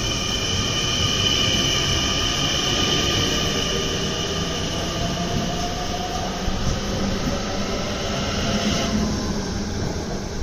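NS Sprinter Nieuwe Generatie electric multiple unit moving along the platform: a rumble of rolling wheels under a steady high whine from the traction equipment. One tone rises in pitch as the train gathers speed. The whine cuts off suddenly near the end as the last car goes by.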